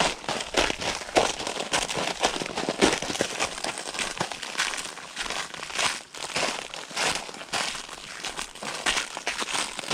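Footsteps crunching through snow: a dense, irregular crackle with no steady rhythm.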